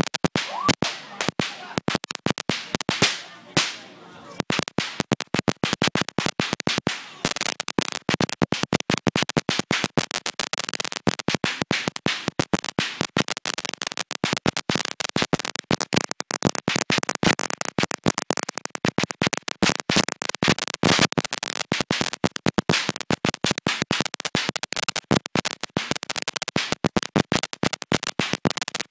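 A long string of firecrackers going off: rapid sharp bangs, scattered and broken at first, then an unbroken fast crackle from several seconds in.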